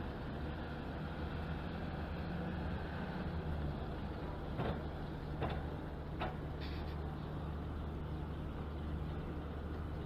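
Steady low engine hum aboard a river cruise ship, with three or four short sharp clanks about halfway through.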